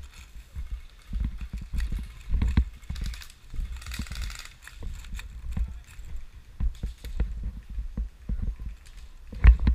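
Uneven dull thumps and rumble of footsteps and gear knocking against a body-worn camera as an airsoft player moves, with a short run of fast, light clicking about four seconds in.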